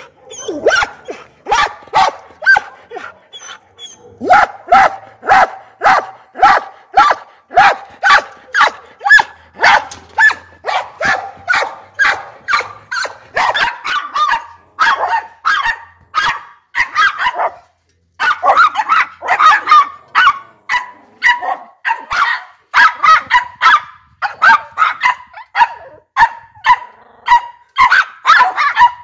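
A dog barking over and over, about two barks a second, with a short break a little past halfway.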